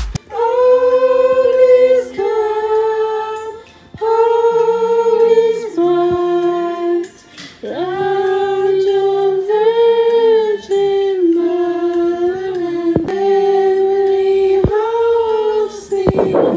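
Voices singing a slow song without instruments, led by a female voice in long held notes with a quieter lower part beneath.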